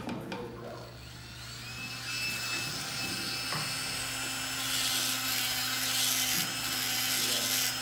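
Podiatry electric nail drill starting up about a second and a half in with a rising whine, then running at a steady high pitch as its burr grinds the surface of the toenail, with a hiss building over the second half.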